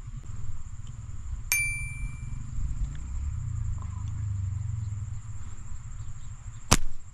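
A slingshot firing near the end: one sharp snap as the drawn flat rubber bands are released. About a second and a half in, a single ringing metallic ding.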